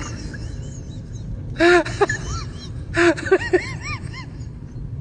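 Short pitched animal cries that each rise and fall, coming in quick runs of several about a second and a half in and again about three seconds in, over a steady low rumble.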